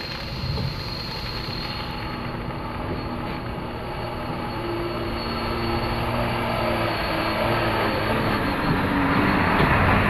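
A heavy tanker truck's engine running as it drives slowly over a muddy road, a steady drone that grows louder as it approaches and is loudest near the end as it passes close by.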